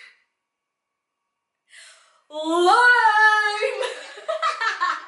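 A woman's voice in one long, loud, drawn-out call whose pitch rises and then holds, half sung, followed by quicker speech or laughter. It comes after about two seconds of silence.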